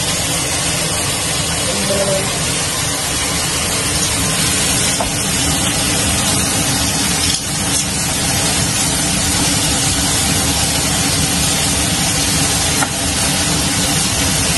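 Steady, loud hissing noise of a kitchen during cooking, running without a break and dipping briefly twice.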